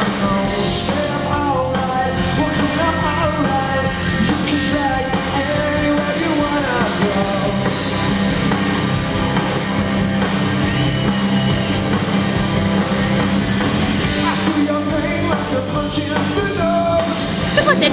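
Live band music: acoustic and electric guitars playing a rock song, with a sung vocal.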